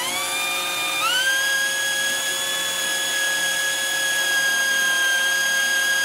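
Electric drill running as it bores a hole, its motor whine rising in pitch about a second in and then holding steady at full speed.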